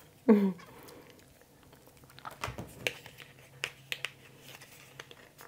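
Soft, scattered clicks and taps of small plastic lip-gloss tubes being handled, starting about two seconds in, after a brief vocal sound at the very start.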